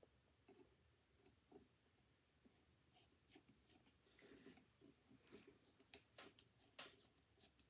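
Near silence with faint scattered clicks and light scrapes of small metal parts being handled, as a small screw is worked into an Edison phonograph carriage.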